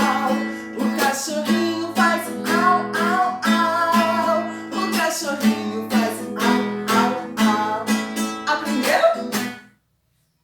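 Acoustic guitar strummed in a steady rhythm under a woman singing a children's song about animal sounds. The music stops abruptly near the end.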